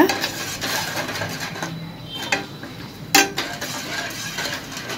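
Metal spoon stirring grapes, sugar and water in a stainless steel saucepan: a steady scraping against the pot, with a couple of sharp clinks of the spoon on the pot's side, the loudest a little past three seconds in.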